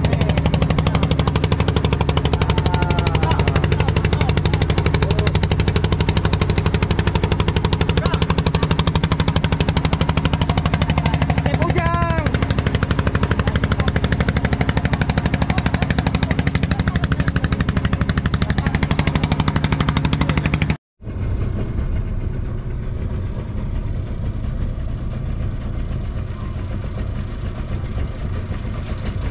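Fishing boat's engine running steadily under way, a fast even chugging with a strong low rumble. About two-thirds of the way through it cuts off abruptly and a quieter, steady low rumble follows.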